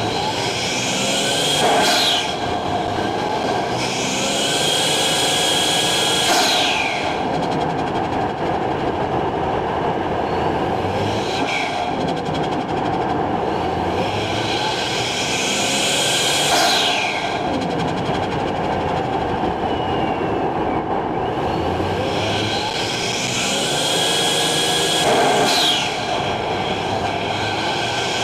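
Toyota Chaser's turbocharged 1JZ-GTE straight-six running under load, the turbo whoosh building and then dropping away in a sharp falling flutter each time the throttle is lifted, four times.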